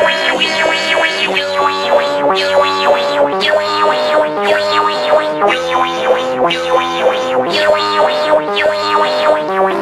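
Electronic Sparta-remix-style music with a synthesizer melody and a regular beat of about one pulse a second.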